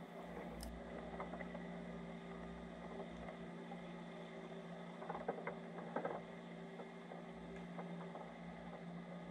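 Steady drone of a boat engine heard underwater through a GoPro's waterproof housing, with a few faint clicks about five to six seconds in.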